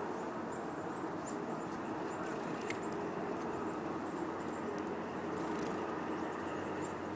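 Steady outdoor background rumble with faint, thin, high-pitched calls of small birds repeating many times over, and one small click near the middle.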